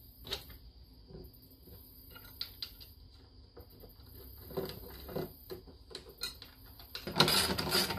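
Light clicks, taps and scratches of hands handling a hard plastic snorkel body and its small mount parts on a table. About seven seconds in, a loud, dense rasping noise starts.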